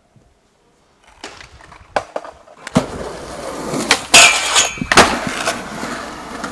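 Skateboard: a few light clicks, then wheels rolling on concrete with several sharp clacks, a harsh scrape a little past four seconds in, and a loud slap about five seconds in.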